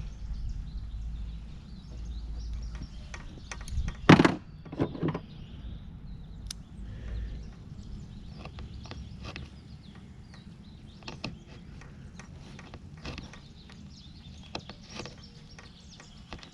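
Scattered light clicks and knocks of hand work, the loudest two knocks about four and five seconds in, over a steady low hum.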